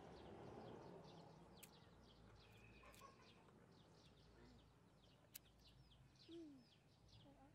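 Faint chirping of small birds: many short, high chirps in quick succession, with a few sharp clicks in between.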